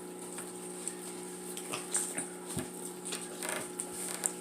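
Someone eating seafood with scattered small clicks and smacks of chewing, over a steady low hum.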